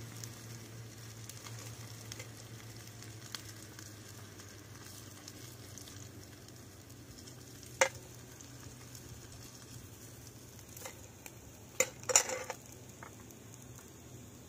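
Food sizzling softly in a small pan on a portable gas stove. There is one sharp metal clack about eight seconds in and a quick few more around twelve seconds, from tongs knocking against the pan or container.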